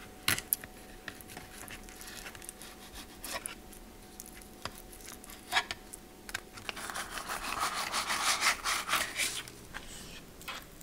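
Fillet knife cutting and scraping against a plastic cutting board as crappie fillets are trimmed of their rib bones and skinned: a few sharp taps, then about two-thirds in a stretch of quick rasping strokes lasting a few seconds.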